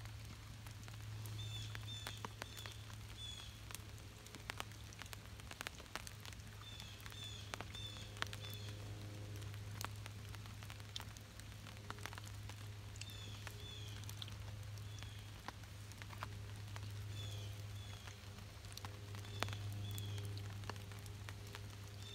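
Wood campfire crackling in light rain, with scattered sharp pops and ticks throughout. A bird calls repeatedly in short runs of three or four high, falling chirps every few seconds.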